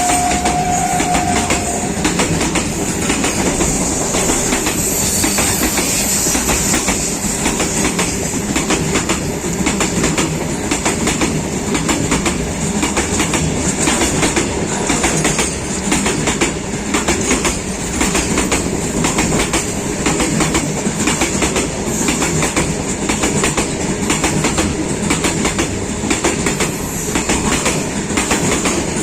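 Freight train hauled by Indian Railways WAG-5HB and WAG-5 electric locomotives running along the track, its wheels clattering steadily over the rail joints. A single steady horn tone cuts off about two seconds in.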